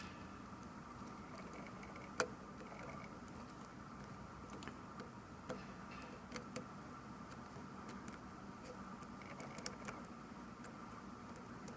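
Scattered light clicks and taps of small tools and parts being handled while a compact digital camera is worked on, about a dozen, the sharpest about two seconds in, over a faint steady hum.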